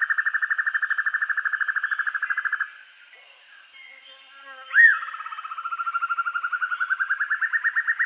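Sempur-hujan rimba broadbill calling with a fast, evenly pulsed trill that breaks off about two and a half seconds in. After a short pause comes one loud, sharp note that sweeps up and back down, the loudest sound here. The trill then resumes low and gradually rises in pitch.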